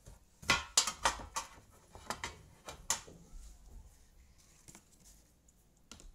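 Loose jigsaw puzzle pieces clicking and clattering against each other and the table as a hand sorts through them: about seven sharp clicks in the first three seconds, then fainter taps, and one more click near the end.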